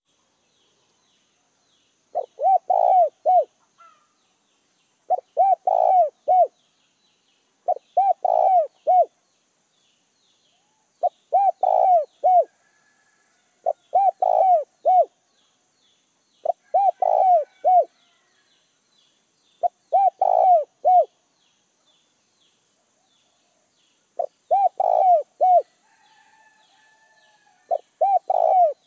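Spotted dove cooing: a phrase of three or four coos repeated nine times, about every three seconds, with a longer pause before the last two. It is the song of a caged decoy dove, used to lure and provoke wild spotted doves.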